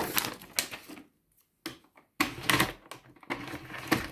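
Hard plastic parts of a small bagged cylinder vacuum cleaner clicking and clattering as it is handled, in a few short bursts.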